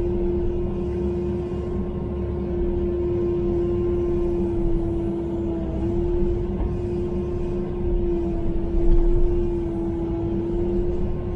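Kubota KX080-4 excavator's diesel engine and hydraulics running under load, heard from inside the cab, while the bucket digs out a tree stump. There is a steady whine over a low engine rumble.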